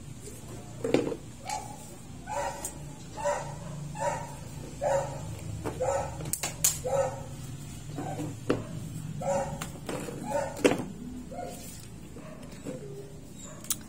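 A dog barking over and over in short, separate barks, roughly one or two a second, with a few brief pauses.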